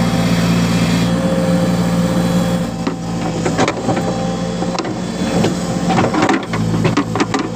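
Tractor loader backhoe's diesel engine running steadily under the work. From about three seconds in, the bucket scrapes and crunches through soil and rubbish, giving many sharp clicks and knocks over the engine.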